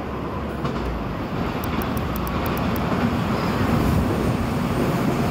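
Electric multiple-unit passenger train approaching and running past below, the rumble of its wheels on the rails growing louder about three seconds in.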